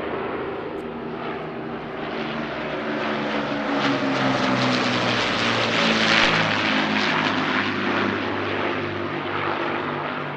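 Propeller-driven aircraft engines droning as a plane flies over, growing louder to a peak a little past the middle, then easing off.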